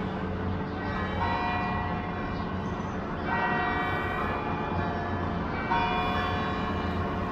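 Church bells of San Fernando Cathedral ringing: three strokes about two seconds apart, each ringing on into the next, over a low steady rumble.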